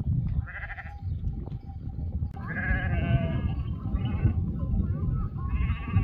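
Sheep and goats bleating: about four wavering calls one after another, the longest a second or so, over a steady low rumble.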